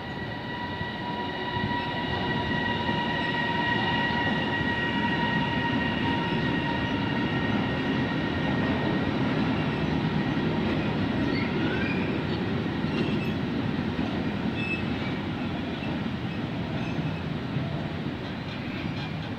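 A freight train of boxcars hauled by an electric locomotive rolls past at close range with a continuous low rumble. A steady high whine over the first half fades away. A few brief wheel squeals come later, as the wagons go by.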